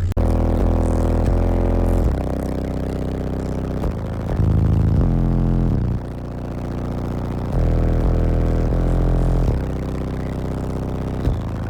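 Eight 12-inch Deaf Bonce subwoofers in a car's ported box playing a song's deep bass line very loud. Long held bass notes step to a new pitch every one to two seconds.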